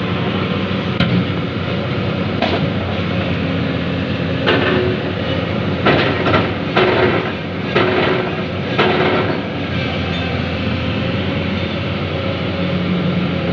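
Jonyang JY623E excavator running steadily while digging and loading soil, with a series of knocks and clanks from about four to nine seconds in as it works.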